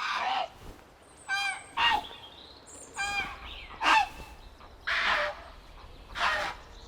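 Grey herons calling at a breeding colony: harsh, croaking calls repeated every second or so, with two clearer, more nasal calls between them.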